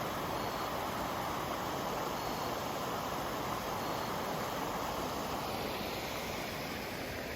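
Steady rush of creek water flowing over rocks, an even hiss-like noise at constant level.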